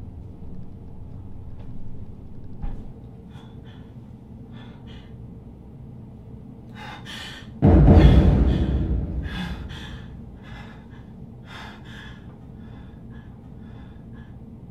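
A person breathing hard in short, uneven breaths and gasps. About eight seconds in, a loud deep boom hits suddenly and dies away over a couple of seconds.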